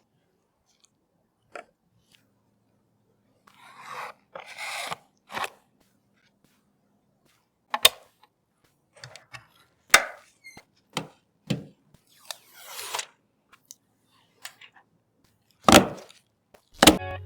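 Scattered sharp clicks and knocks with a few short rustling scrapes, the handling noise of PC components and their packaging being worked by hand.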